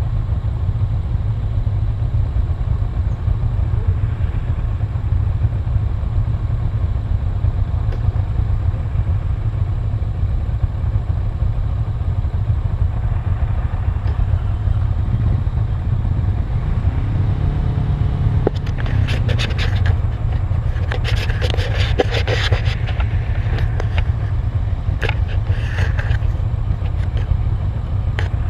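Motorcycle engines idling with a steady low rumble. About halfway through, one engine's pitch rises briefly, and later comes a run of sharp clicks and rustles.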